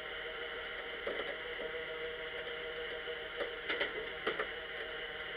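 Steady hum and hiss of a stationary vehicle heard from inside the cab, with a few small, irregular clicks about a second in and again between about three and a half and four and a half seconds in.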